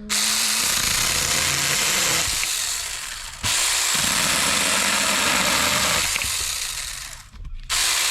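Saker battery-powered mini chainsaw running and cutting wood in three bursts, each starting suddenly and trailing off before the next.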